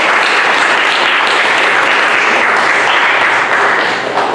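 A small group applauding steadily, the clapping dying away near the end.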